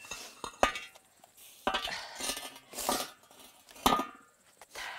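Heavy cast-iron cauldron lid (sotttukkeong) knocking and scraping against the bricks as it is set upside down on the brick stove, a run of separate metal clanks with the sharpest just before four seconds in.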